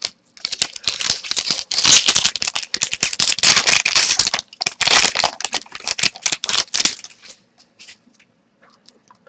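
Hockey trading cards being shuffled and flicked through by hand: a quick, dense run of papery clicks and swishes that stops about seven seconds in.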